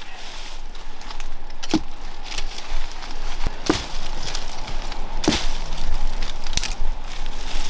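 Woody English ivy stems being cracked and broken off a tree: a handful of sharp snaps, a second or two apart.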